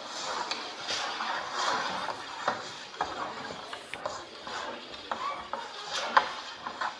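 Electronically amplified scratching and scraping of hand mark-making on a long sheet of paper on a table, with scattered sharp taps and clicks, the loudest about six seconds in.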